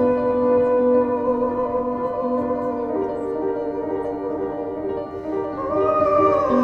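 Background music of slow, held notes over a steady low drone, with a melody that slides up in pitch about five and a half seconds in.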